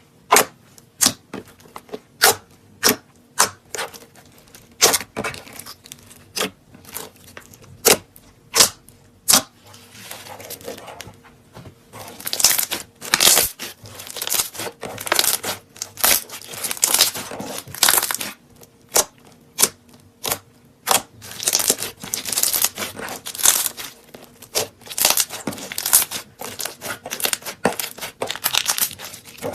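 Slime being squeezed and stretched by hand, giving sharp wet pops and clicks. They come singly in the first half and turn into denser crackling runs about halfway through.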